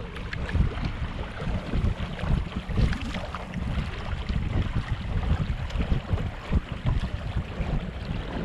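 Wind buffeting the microphone in an uneven low rumble, with water rushing past the hull of a Hobie Mirage Tandem Island sailing trimaran under way.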